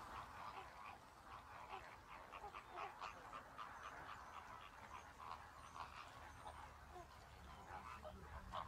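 Faint chorus of many waterbirds, their short calls overlapping in a steady stream.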